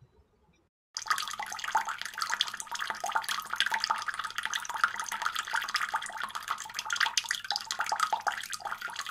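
Water pouring in a steady stream, splashing and trickling, starting about a second in.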